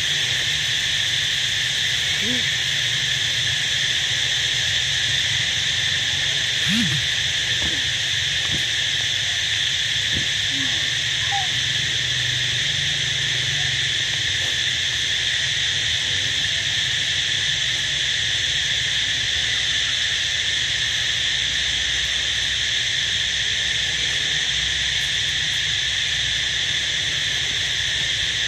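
Steady, unbroken high-pitched drone of a tropical insect chorus. A few faint short calls sound beneath it, the clearest about seven seconds in.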